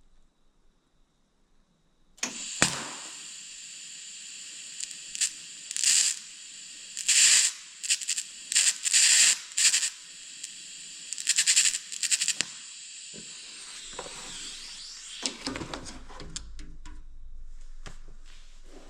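TIG welding arc on a cracked copper radiator seam. After about two seconds of near quiet the arc strikes with a sharp click, then gives a steady high hiss that surges louder several times before fading away near the end.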